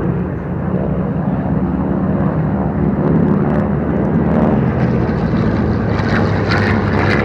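Piston-engine propeller aircraft flying past in the air-show raid re-enactment: a steady engine drone whose pitch shifts as the planes pass.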